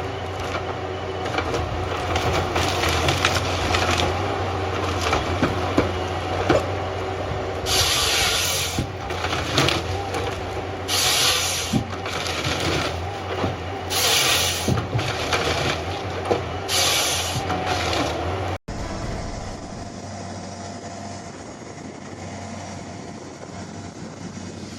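Forestry harvester working timber: its engine runs steadily with a low hum, and several loud noisy spells of about a second each come as the head grips, saws and strips the wood. Near the end the sound cuts to a quieter steady machine noise.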